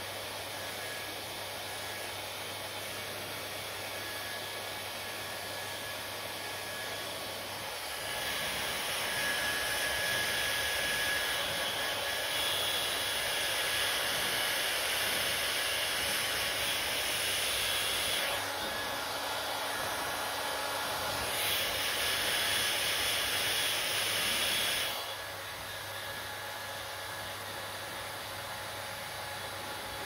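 Handheld hair dryer blowing steadily. It grows louder and hissier for about ten seconds from a quarter of the way in, drops back, then swells again for a few seconds before settling.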